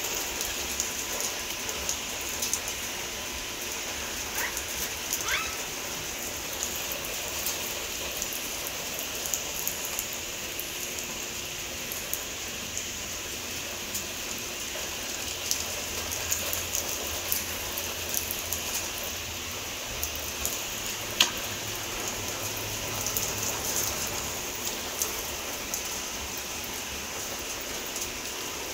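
First rain of a storm falling: a steady hiss with many scattered drops ticking on surfaces close by, and one sharper tick about three quarters of the way through.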